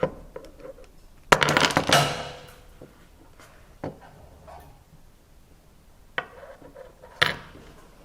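Small hard parts of an airsoft gas blowback pistol being handled: a clattering rattle about a second in, then a few single clicks and knocks.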